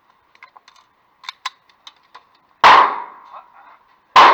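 A few light metallic clicks of the gun being handled, then two gunshots from an MP5 9mm submachine gun fired single shots, about a second and a half apart, each with a ringing echo.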